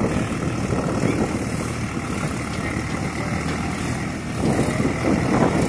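Tractor diesel engines running steadily under load as one tractor tows another tractor and its loaded trolley out of deep mud.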